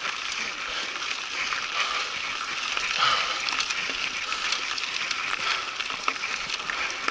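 Mountain bike tyres crunching over loose gravel, with rattling and quick clicking from the bike as it rolls downhill.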